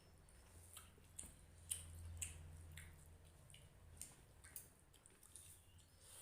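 Faint wet chewing and lip-smacking of a person eating rice and fish curry: irregular small sharp clicks, over a faint low hum.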